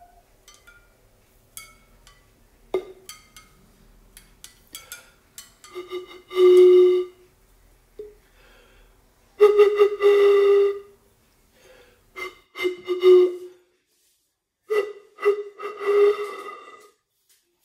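A short metal tube blown like a pipe, giving several long whistly notes on nearly one pitch, the loudest about six and ten seconds in. Before them come a scatter of light clicks and taps.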